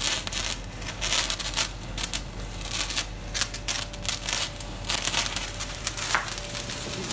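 A lit sparkler crackling and spitting sparks in irregular bursts as it is held against a flower-pot firework's fuse.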